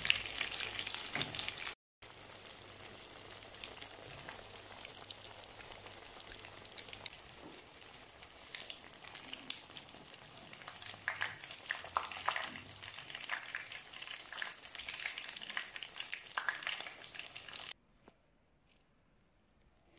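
Hot oil sizzling and crackling around breaded instant-noodle rings deep-frying in a pan, with many sharp pops. Louder for the first two seconds, then after a brief break a quieter, steady crackle that stops shortly before the end.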